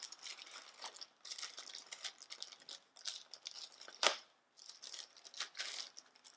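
Plastic packaging around an LED light panel crinkling and being pulled and torn open by hand: irregular rustles with one sharper crack about four seconds in.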